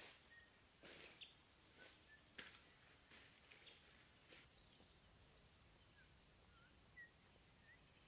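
Faint footsteps swishing through tall grass, a stroke every second or so, ending about four seconds in, over a steady high whine that stops at the same moment. A few short, faint bird chirps follow.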